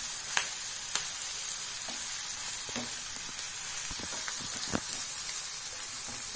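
Sliced onions and green chillies sizzling in hot oil in a kadai as they sauté, stirred with a wooden spatula that knocks against the pan a few times.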